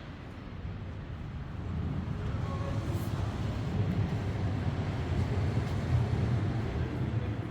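A motor vehicle passing close by on the street. Its low rumble builds over a couple of seconds, stays loud, then eases off near the end.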